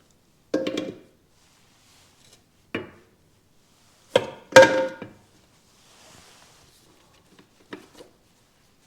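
Metal parts knocking and clanking together, about five separate sharp knocks with a short ring, the loudest a close pair about four and a half seconds in.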